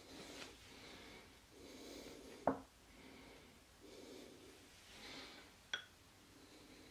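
Two sharp clicks, about two and a half and five and a half seconds in, from thin metal twin skewers knocking against a wooden chopping board as mushroom and beef are threaded on and the skewer is set down, over faint, regular breathing.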